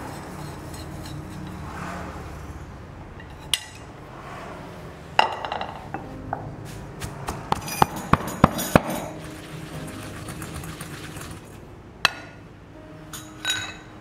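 Metal pestle pounding roasted spice seeds in an aluminium mortar: sharp metal clinks, with a quick run of about six strikes around the middle and single knocks before and after, over a low steady hum.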